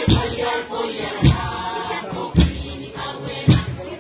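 Group of voices singing a Kiribati dance song in chorus, with a deep thump keeping the beat about once a second.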